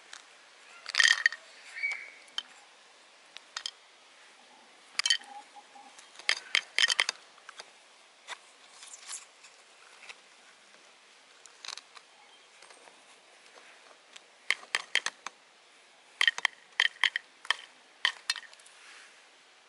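Sparse light clicks and taps of close handling noise, some single and some in quick clusters of ticks, with quiet between.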